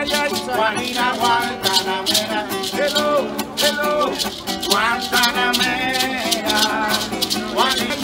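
Acoustic nylon-string guitar strummed with maracas shaking a steady rhythm, while men sing a Cuban street song.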